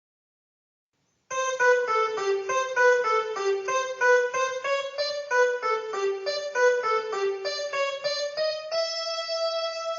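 Casio CTK-2400 electronic keyboard playing a quick melody of single notes on a piano-like preset voice, starting about a second in and ending on one long held note.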